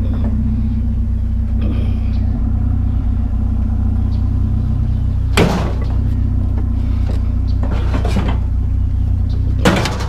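Truck engine idling steadily, with two sharp knocks from scrap being handled, one about five seconds in and one near the end.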